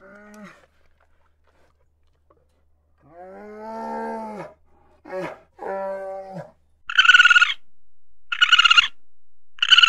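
Bear vocalising: a few low, drawn-out calls, the longest about a second and a half. From about seven seconds in, a louder series of higher-pitched animal calls follows, evenly repeated about once a second.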